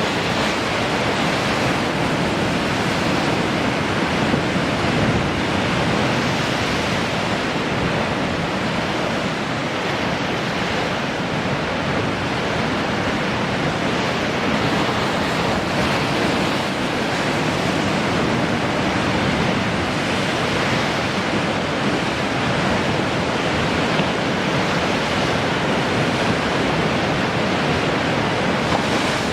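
Sea surf: waves washing and breaking in a continuous, steady rush, with only slight swells in loudness.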